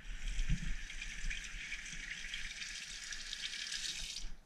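Steady hiss of running water that starts at once and cuts off sharply about four seconds in.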